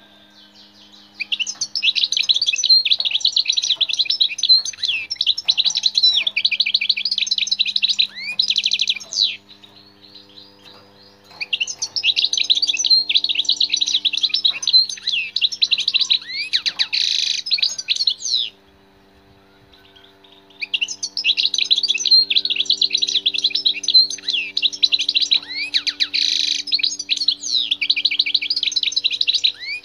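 European goldfinch singing its rapid, twittering song in three long bouts of several seconds each, separated by short pauses.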